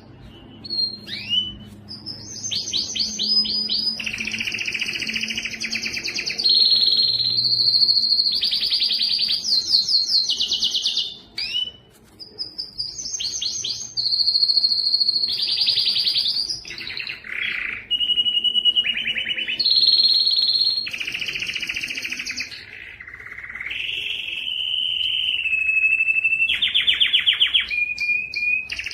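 Domestic canary singing: a long run of song built from rapid repeated trills and held whistled notes, changing phrase every second or two with brief pauses between.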